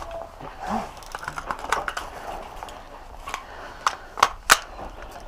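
About five sharp clicks and knocks scattered over a low background hiss, the loudest two close together about four seconds in.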